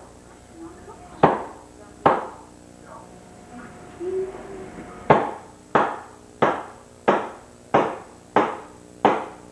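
Hammer blows: two single strikes, a pause, then a steady run of strikes about three every two seconds, each with a short ringing tail.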